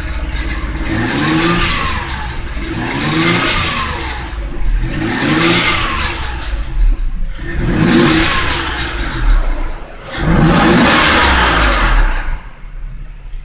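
Swapped-in Ford 3.0 V6 from a 2006 Fusion, in a Mazda6, revved up and let fall back about five times in a row, each rev rising and then dropping away. It settles back to idle near the end.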